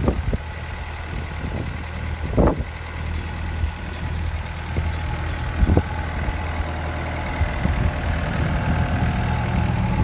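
Diesel engine of a Doosan DX63-3 mini excavator, a 60 horsepower Yanmar, idling steadily, with a couple of brief knocks.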